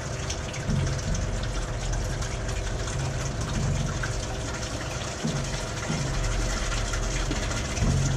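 Water running steadily under hose pressure through a garden-hose connection into an engine block being flushed, with the hose fitting at the heater hose leaking while it is worked on by hand.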